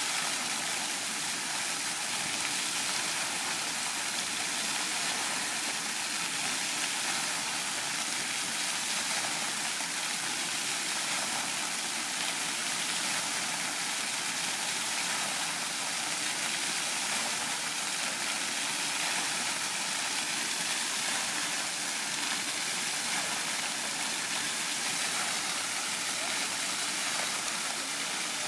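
Water jets of a dancing fountain spraying up and splashing down onto the wet pavement: a steady rushing hiss.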